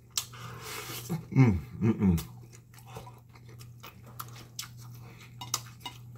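Close-up mouth sounds of a man eating baked pig tail with his fingers: wet chewing and lip-smacking clicks. About a second and a half in he gives two falling "mm" hums of enjoyment.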